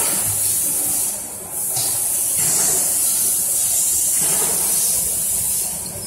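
Steady high-pitched hiss of factory machinery running on the shop floor.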